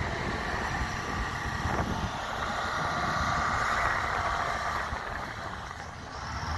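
A steady engine drone, loudest for a couple of seconds mid-way, over a fluttering low rumble of wind on the microphone.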